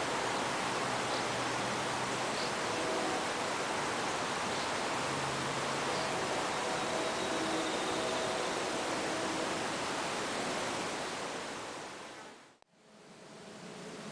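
Faint, distant locomotive air horn chord sounding in a few separate blasts under a steady outdoor hiss. The sound fades almost to nothing about twelve and a half seconds in, then the hiss comes back.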